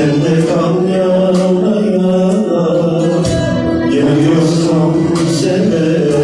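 A man singing into a microphone over amplified music, his voice holding long notes above an accompaniment with drum hits.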